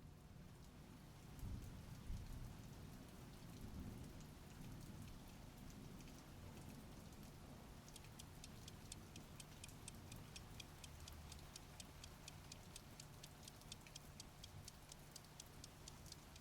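Faint, fast, evenly spaced ticking over a low steady hum, with a few low thuds about a second and a half to two seconds in. The ticks grow more distinct about halfway through.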